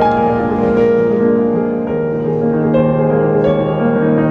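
Background music led by piano, with sustained chords and notes that change every second or so.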